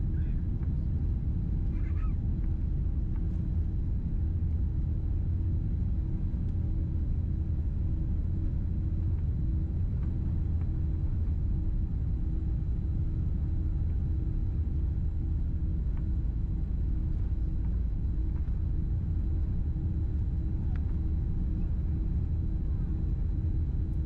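Cabin noise inside a Boeing 787-10 at takeoff: a steady, deep rumble of its Rolls-Royce Trent 1000 engines and airflow, with a constant low hum underneath.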